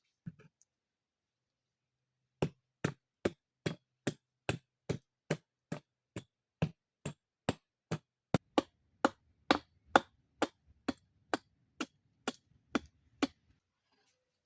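A tool chopping into wood in a rapid, even rhythm, about two and a half sharp strikes a second, some two dozen in all. The strikes begin a couple of seconds in and stop shortly before the end.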